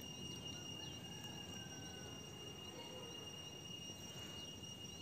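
Quiet outdoor background: a steady high-pitched whine, typical of an insect's continuous trill, with a few faint chirps.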